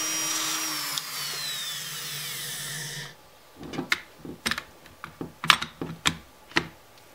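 Handheld rotary tool with a cutting disc whining steadily, then falling in pitch as it is switched off and spins down. After that, a series of sharp clicks and knocks as the pistol is fitted into the nylon carbine conversion kit's body.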